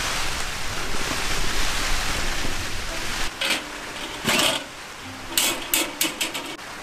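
A gas torch hissing steadily as it lights the wick of an Aladdin Blue Flame kerosene heater, cut off about three seconds in. Then several sharp metal clanks as the heater's chimney is lowered back over the burner.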